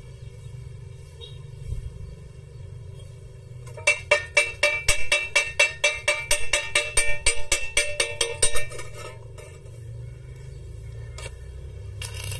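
A chipping hammer knocking slag off a fresh stick weld on a 1-inch round steel bar: about five sharp, ringing metallic strikes a second for roughly five seconds. Near the end the stick-welding arc strikes again and crackles.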